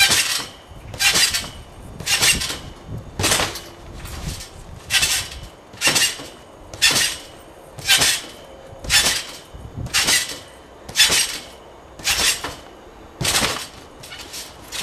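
Trampoline being bounced on: each landing sets the steel springs clanking and jingling with a thud from the mat, about one a second in a steady rhythm, around thirteen times.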